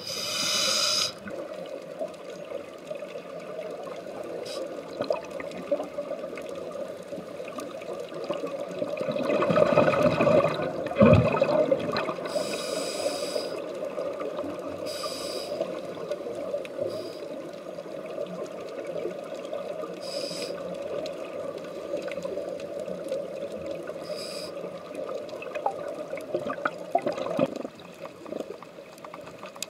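Underwater sound of scuba divers' breathing through their regulators: irregular bursts of hissing and bubbling over a steady underwater drone, the loudest bubbly rush about ten seconds in.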